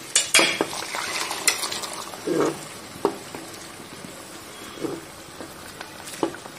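Kidney beans being stirred into sizzling masala gravy in a pan: a steady sizzle with sharp knocks and scrapes of the spatula against the pan, the loudest in the first half second, and a few duller, softer sounds further on.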